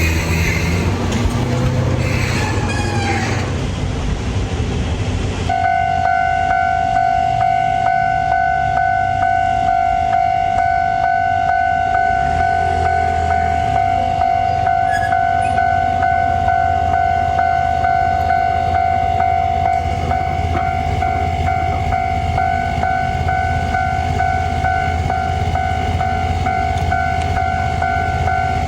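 A Toden Arakawa Line tram running with high squeals from its wheels. About five seconds in, a Japanese level-crossing alarm takes over: a steady electronic "kan-kan" bell with repeating strokes, the warning that a tram is approaching the crossing.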